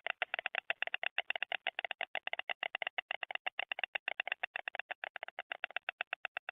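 A pair of white storks clattering their bills at the nest, a fast, even run of sharp clicks, about a dozen a second. It is the pair's bill-clattering greeting display.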